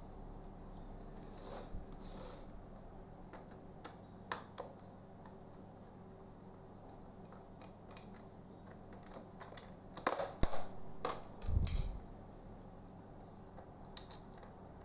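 Light clicks and taps of small parts and tools against a laptop's plastic case as it is taken apart, with a brief scraping early on and a quick run of sharper clicks about ten seconds in, ending in a dull knock.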